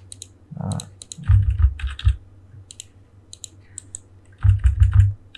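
Computer keyboard and mouse being worked in several short bursts of rapid clicks with dull knocks.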